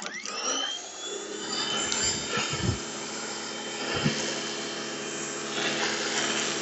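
Sun Joe SPX-4004 electric pressure washer's motor spinning up as the trigger is pulled, its whine rising and then holding steady. Under it is the hiss of the soap nozzle spraying on the low-pressure setting.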